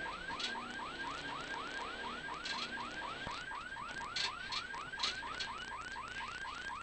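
Warning siren of a rally course car, a fast yelp rising in pitch about five times a second, heard from inside the car over a faint engine rumble, with a few brief crackles.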